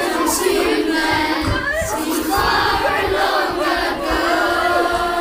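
A crowd of many voices at once, loud and overlapping throughout.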